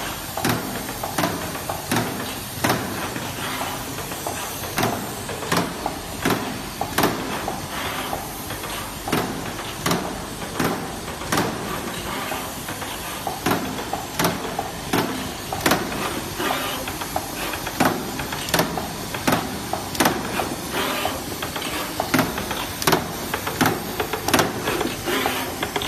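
Automatic 18650 battery-cell spot welding machine cycling in no-load run mode: irregular sharp clacks, about one or two a second, of its pneumatic cylinders and moving slides, with short air hisses, over a steady mechanical running noise.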